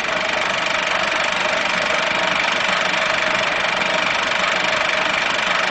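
Steady, loud hiss with a few faint steady tones running through it, unchanging throughout.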